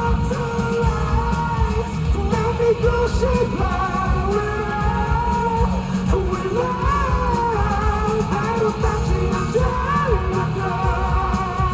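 A pop-rock song played live by a band over a concert hall's PA, with a male voice singing a bending melody over a heavy, steady low end.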